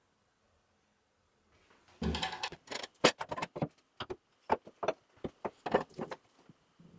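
Wooden lamp-base parts handled on a wooden workbench and fitted onto a threaded steel rod: a run of irregular knocks and clicks starting about two seconds in.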